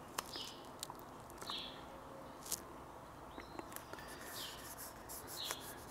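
Fingertips rubbing and pressing a vinyl skin down onto a laptop's aluminium palm rest, making a few faint short swishes and scattered light clicks.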